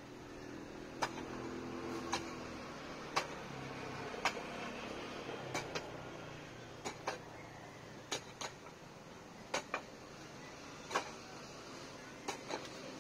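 Pick striking hard, dry ground in repeated sharp knocks about once a second, some coming in quick pairs, as a foundation trench is dug by hand.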